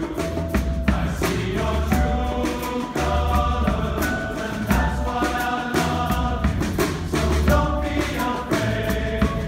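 Male choir singing a pop arrangement in harmony, backed by a live band whose drum kit, upright bass and hand drum keep a steady beat under the voices.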